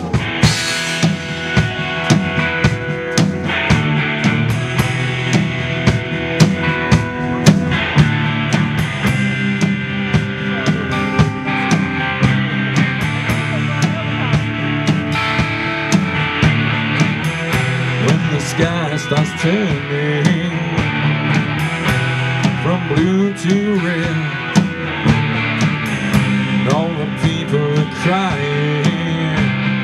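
Live rock band playing an instrumental passage: two electric guitars, bass guitar and drum kit.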